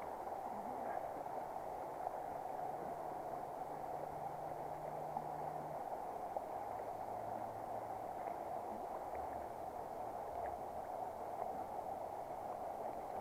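Steady rush of a small river flowing over stones.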